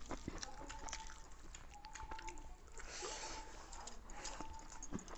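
Eating by hand: wet chewing, lip smacks and small clicks of mouths and fingers working rice and curry, with a short breathy rush about three seconds in. A faint short tone repeats about every second and a half behind it.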